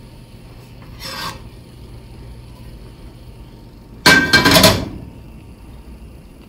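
Stainless steel pan set down on a gas stove's burner grate, its base scraping on the metal for under a second, about four seconds in. A shorter, softer rustle comes about a second in.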